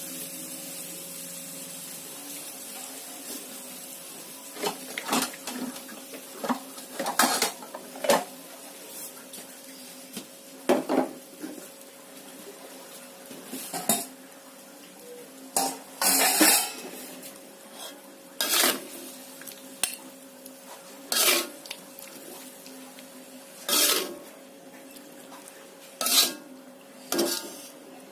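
A metal utensil scraping and clanking against a cooking pan as the cooked clams are stirred and scooped out. It comes in separate short clatters every two or three seconds.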